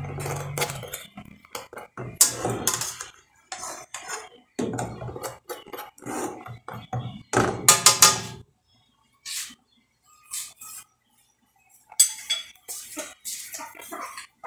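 A kitchen utensil clinking, knocking and scraping against a frying pan in irregular clusters of sharp clicks, with a quiet stretch of a few seconds past the middle.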